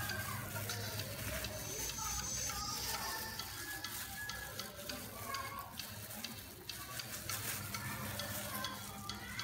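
Crackling and rustling of a plastic cream packet and a plastic-gloved hand as cream is squeezed out into a bowl of chopped cabbage and apple.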